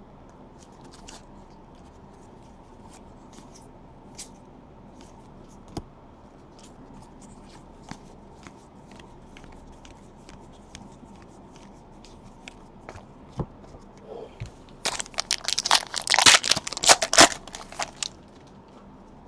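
Faint scattered clicks of trading cards being flipped and handled. Then, near the end, about three seconds of loud crinkling and tearing as a foil card-pack wrapper is ripped open.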